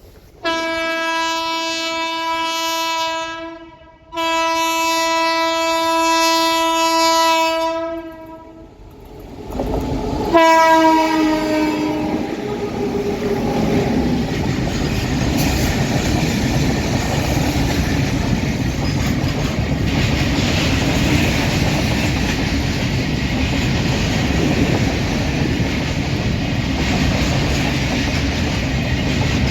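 Indian Railways train horn sounding two long blasts, then a third that drops in pitch as the train passes close by. The train's rush and the clatter of its wheels on the rails follow and go on steadily.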